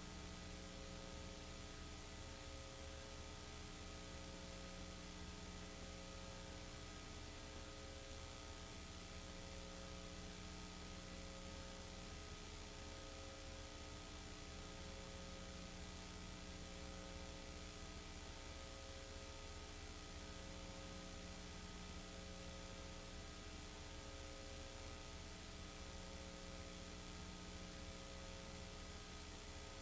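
Faint steady electrical hum and hiss, with a tone that pulses on and off regularly about every second and a half.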